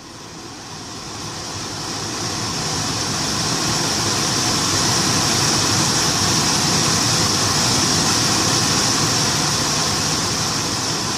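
Infiniti M45 HVAC blower motor spinning up to maximum speed over several seconds, then running with a steady whir of rushing air. This is a used spare blower being tested on the bench under the glovebox.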